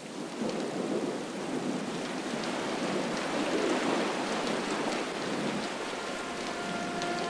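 Heavy rain pouring down, with a low rumble of thunder that swells and rolls through the middle.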